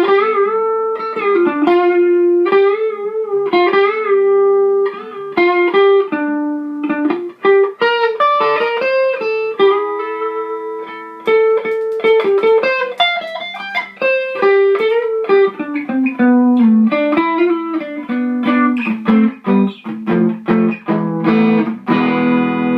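Les Paul-style electric guitar on its neck pickup, played through a modded Fender Champ 600 valve amp into a Celestion G12H 75th Anniversary 12-inch speaker: picked single-note melodic lines, with a chord left ringing near the end.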